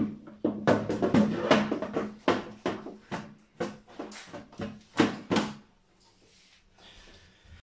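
An irregular run of sharp knocks and clicks, about a dozen in some five seconds, as a consumer unit is handled and pushed into place in its cabinet, over a steady low hum that stops near the end.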